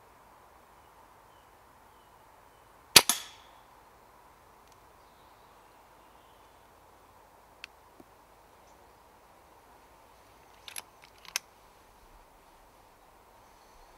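A single sharp shot from a Brocock Pathfinder PCP air rifle about three seconds in, with a brief tail after it. A few quick sharp clicks follow near the end.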